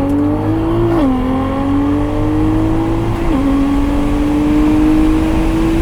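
Nissan GT-R's twin-turbo V6, tuned full bolt-on on E85, pulling hard at full throttle from a 40 mph roll. The engine note climbs steadily, with quick upshifts about a second in and again about three seconds in, each followed by a fresh climb.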